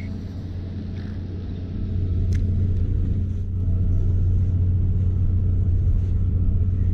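A boat's engine running with a steady low hum that grows louder about two seconds in and again near four seconds. A single sharp click sounds a little after two seconds.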